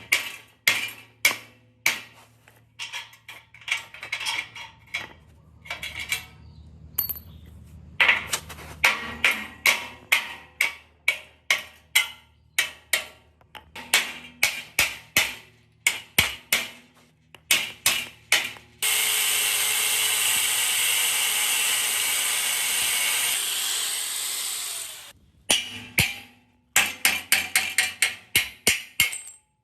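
Repeated hammer strikes and knocks, in uneven runs of several a second. From about 19 to 25 seconds in a power tool runs steadily, then the strikes resume.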